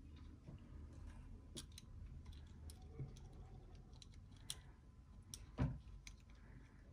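Faint clicks and small taps from handling a Sculpfun S9 laser module while an air-assist nozzle is fitted to it, with one louder knock about five and a half seconds in.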